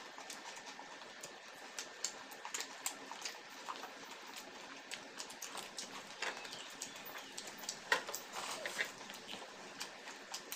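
Faint chewing and lip-smacking with scattered soft clicks, as biryani is eaten with the fingers.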